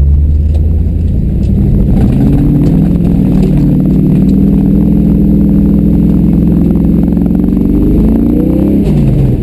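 GMC tow truck's engine working hard while plowing heavy, wet snow, with a steady low rumble throughout. The revs come up about two seconds in and hold high, climb again near the end, then drop off.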